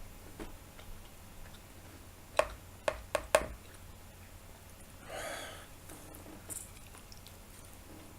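Quiet chewing of raw button mushrooms, with four sharp clicks a little over two seconds in and a short breathy exhale about five seconds in.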